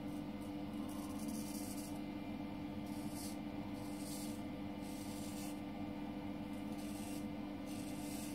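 Thiers-Issard straight razor scraping stubble through shaving lather in several short strokes, each a brief hissing scrape.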